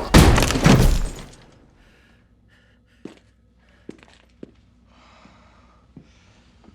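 A loud crash with breaking and shattering in the first second and a half, dying away, then a few isolated small ticks in the quiet that follows.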